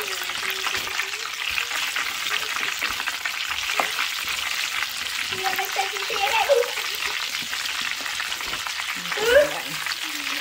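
Chicken tenders deep-frying in hot oil in a square pan with a wire fry basket: a steady, dense crackling sizzle. A short rising pitched sound stands out about nine seconds in.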